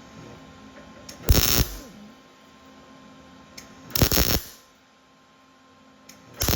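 Welder laying three short spot welds, each a burst of arc noise under half a second long, about two and a half seconds apart, over a faint steady hum.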